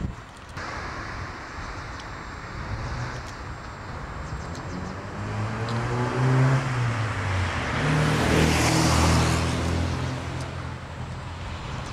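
A car drives past on the street: its engine hum and tyre noise build to a peak about eight or nine seconds in, then fade away.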